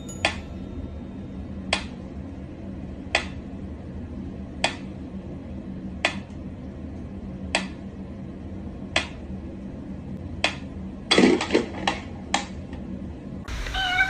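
Mechanical pendulum metronome ticking slowly, one sharp click about every one and a half seconds. About eleven seconds in, a quick run of louder knocks and clatter breaks in.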